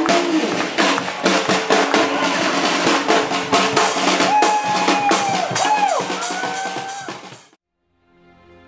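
Brass band with drums playing an upbeat tune: sousaphone, trumpets, snare and bass drum, with held horn notes bending down in pitch about two-thirds of the way in. The band cuts off suddenly near the end, and after a moment's silence soft, slow background music fades in.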